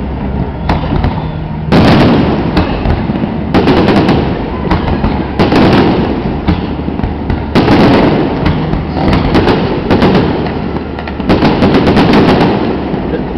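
Aerial fireworks display: volleys of shell bursts and rapid crackling reports, with a fresh loud volley about every two seconds over a low rumble.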